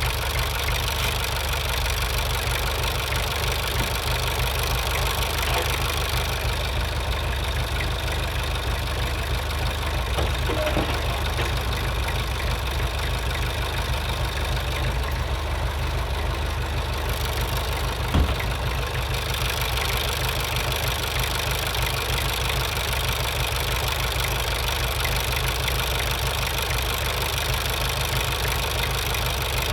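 Engine idling steadily with a deep, low-pitched run, and a single short knock about eighteen seconds in.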